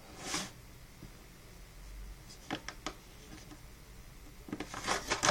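Handling noises as a microwave popcorn bag is set into the microwave: a brief paper rustle just after the start, a few light clicks and knocks around the middle, and a louder cluster of rustling and clicks near the end.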